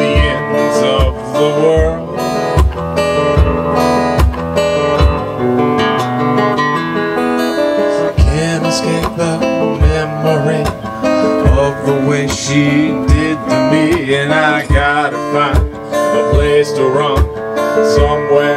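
Live acoustic guitar strummed in steady chords over a low kick-drum thump on each beat, about every three-quarters of a second. A singing voice comes in over it in the middle stretch.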